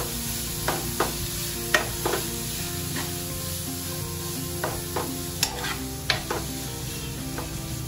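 Grated raw papaya and green chillies sizzling in hot oil in a nonstick frying pan as a metal spoon stirs them, with sharp taps and scrapes of the spoon against the pan at irregular moments.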